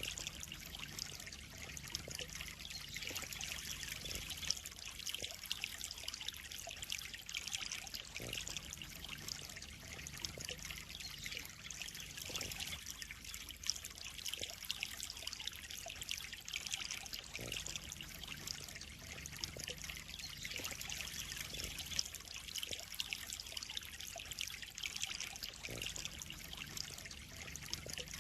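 Water trickling and splashing steadily into a koi pond, a continuous bright patter.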